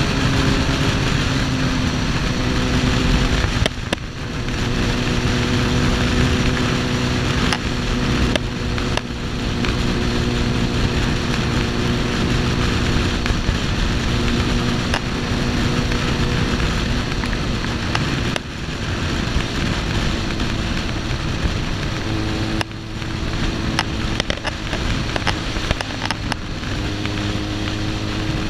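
Suzuki GSX-R1000's inline-four engine running as the bike rides along, under a heavy rush of wind noise on the microphone. The engine note drops out briefly and steps to a new pitch a few times.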